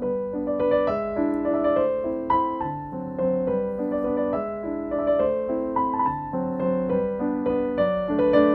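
Background piano music: a gentle melody of short notes over a soft accompaniment.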